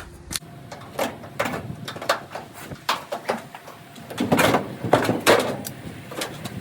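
Irregular knocks and clanks of a clothes dryer's sheet-metal cabinet panels being handled as the dryer is opened up. A low hum stops about half a second in.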